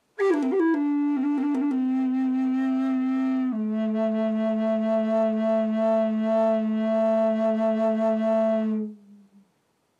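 Long wooden end-blown flute in A being played: it opens with a quick flurry of notes, holds a higher note, then steps down to a long low note that wavers gently before stopping about a second before the end.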